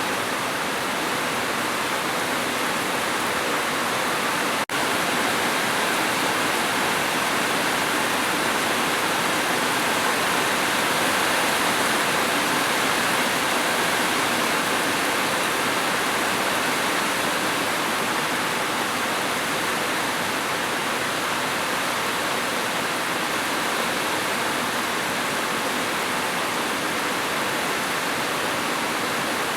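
Steady, heavy rain: a continuous even hiss of falling water, with a momentary dip in level about five seconds in.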